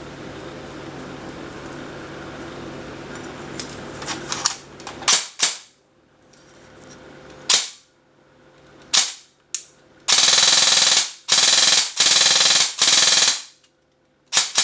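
JG HK416 electric airsoft rifle (AEG) being test-fired: a few single semi-auto shots, then three short full-auto bursts of about a second each, and one last short shot near the end. A steady low hum runs for the first few seconds before the shooting starts.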